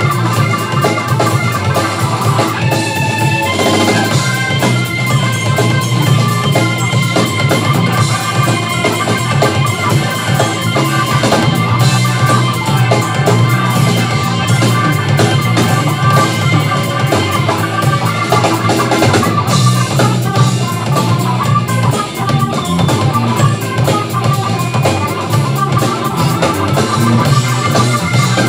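Live funk band playing loudly: drum kit, electric bass, electric guitar and keyboard together, without a break.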